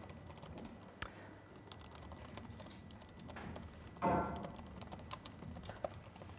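Faint, quick key clicks of a laptop keyboard being typed on, with a brief louder sound about four seconds in.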